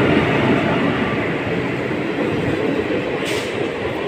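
Indian Railways express train's passenger coaches passing close by at speed: a steady loud rush of wheel and running noise that eases slightly over the few seconds. A brief hiss comes about three seconds in.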